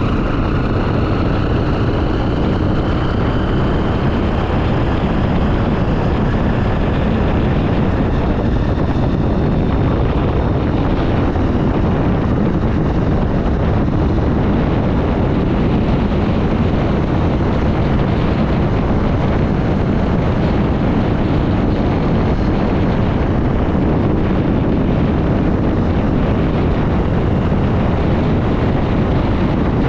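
Honda XR 250 Tornado's single-cylinder four-stroke engine running under way, mostly buried in steady wind noise buffeting the action-camera microphone.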